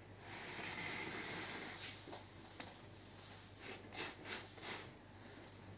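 Faint rubbing and scraping as a hand handles a perforated plastic laundry basket, with a few soft clicks and knocks around four seconds in.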